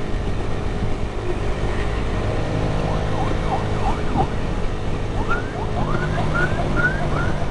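Honda CG 125 single-cylinder four-stroke engine running at highway cruising speed. From about three seconds in, a run of short high chirps joins it, dipping at first and then rising, about two or three a second.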